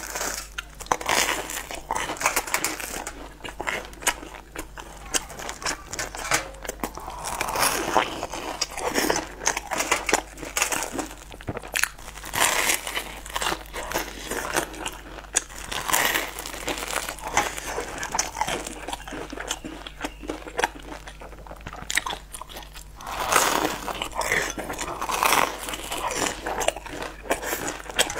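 Close-miked biting and chewing of a crumb-coated twisted bread stick: crisp crunches and crumbly crackling, with several louder bites among steady chewing.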